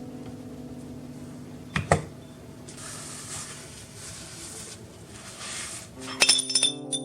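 Soft background music with held notes, over which come two sharp knocks about two seconds in, a hiss lasting about three seconds, and a quick run of ringing clinks near the end.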